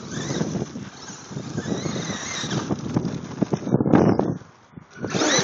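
Electric RC short-course truck driving on gravel: a motor whine that rises and falls with the throttle over tyres crunching and kicking up stones. It drops off briefly about four seconds in, then revs up again near the end.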